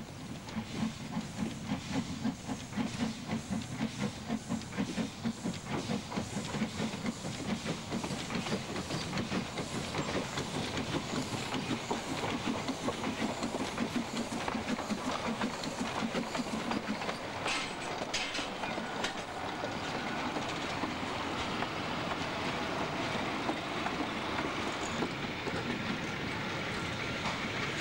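Narrow-gauge steam locomotive working hard as it pulls a train away, with a quick, even beat of exhaust chuffs. After about seventeen seconds the beat fades into a steadier rumble and clatter of the train rolling on.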